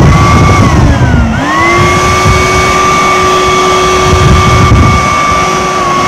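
Siemens 1000 W vacuum cleaner motor running on a test after repair: a steady whine with a few clear tones. Its pitch sags about a second in, then quickly climbs back and holds.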